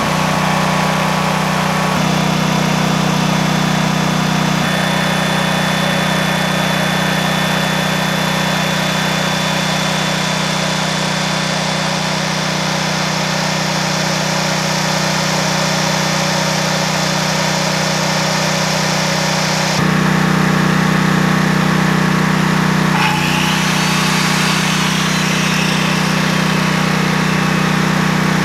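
Briggs & Stratton Vanguard 18 HP V-twin engine on a 5000-watt portable generator running steadily at its governed speed, with a few abrupt shifts in tone. It has been left running to burn off its fuel, and the earlier smoke from gas in the wrong places has stopped.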